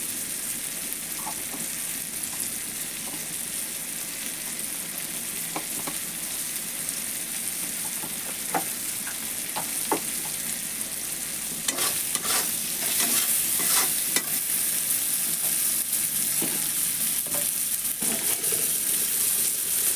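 Prawns and spices frying in hot oil in a kadai, a steady sizzle. In the second half a metal spatula scrapes and stirs against the pan in repeated strokes.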